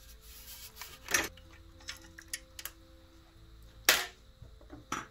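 Sharp clicks and knocks of the espresso machine's sheet-metal top cover and loose parts being handled as the cover is lifted off, the loudest knock about four seconds in, over faint background music.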